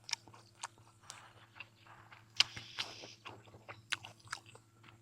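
A person chewing food close to the microphone: irregular sharp mouth clicks and smacks, with a short noisier stretch of chewing about halfway through.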